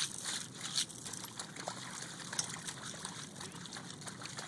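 A German shepherd digging in a wet, muddy hole, its paws and snout making irregular wet scraping and splashing in the mud.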